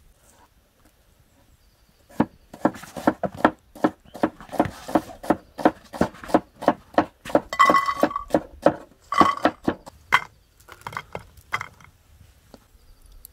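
Heavy cleaver chopping red onion on a wooden cutting board, steady strokes about three a second, with a short ringing tone in the middle of the run. Near the end come a few scattered light clicks, chestnuts dropping into a metal pot.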